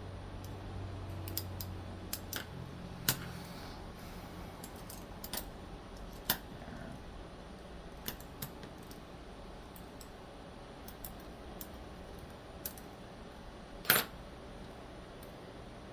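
Small metal parts of a folding knife being handled during reassembly: scattered sharp clicks and taps at irregular intervals, with one louder click near the end.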